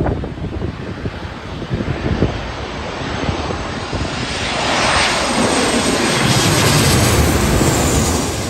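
Airliner passing by: the engine roar swells to its loudest over the second half, and its pitch falls as it goes past.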